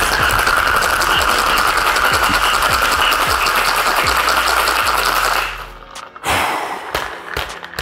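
Ice cubes rattling rapidly inside a metal cocktail shaker shaken hard: the wet shake with ice that chills the mix after the egg-white dry shake. The rattle stops about five and a half seconds in.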